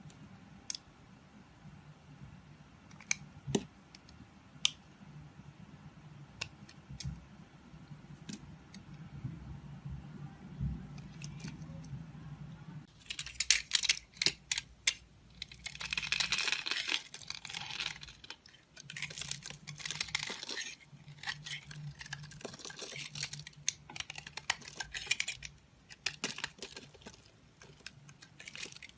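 A knife cutting and carving a bar of soap. A few scattered sharp clicks sound over a faint low hum at first. From about halfway there is a dense run of crisp crackling cuts, coming in bursts.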